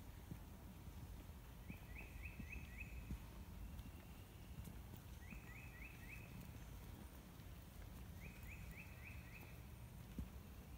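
A songbird singing a short phrase of four or five quick falling notes, three times a few seconds apart, faint over a low steady rumble.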